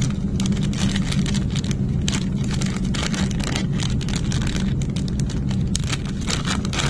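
Plastic packaging crinkling and rustling in a flurry of small crackles as a foam camera wind cover is handled and pulled out, over a steady low hum.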